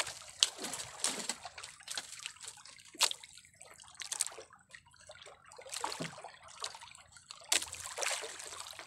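Sea water sloshing and splashing against the side of a small outrigger fishing boat, in short, irregular splashes.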